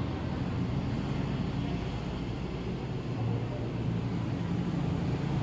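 Motor vehicle engine running with a steady low hum.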